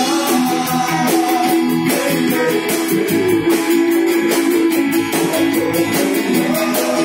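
Loud music over a PA system: guitar with a steady beat.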